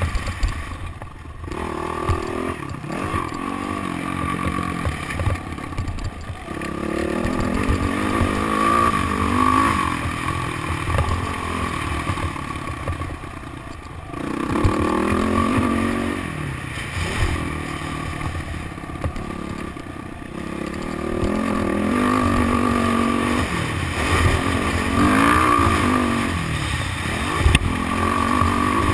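Motocross dirt bike engine revving up and backing off again and again, its pitch climbing and falling as the rider works the throttle and gears around the track, with wind buffeting the microphone.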